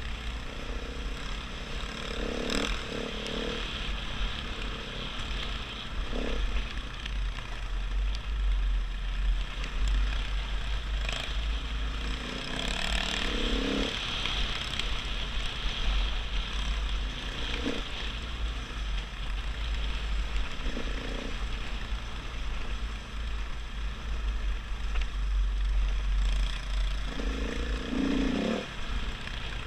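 KTM 500 EXC's single-cylinder four-stroke engine running as the dirt bike rides a rocky gravel trail, heard through a bike-mounted camera with heavy wind rumble on the microphone and a few brief knocks.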